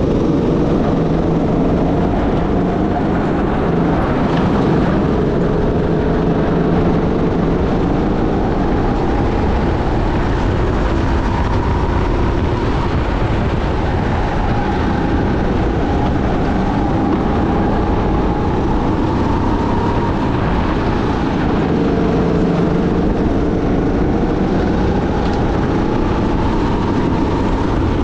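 Sodi SR5 rental go-kart engine running hard in a race, its pitch rising and falling gently as the revs change, over a heavy low rumble from the kart.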